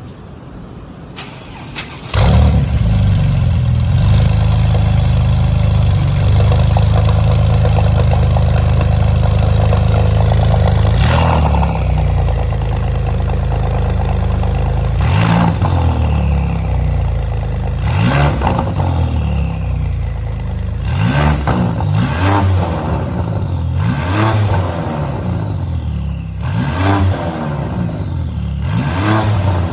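2007 Porsche 911 (997) Turbo's twin-turbo flat-six with a Fabspeed muffler-bypass exhaust: a couple of clicks, then the engine starts about two seconds in and runs at a steady fast idle. From about halfway it is blipped about seven times, each rev followed by a falling whistle of the turbos spooling down.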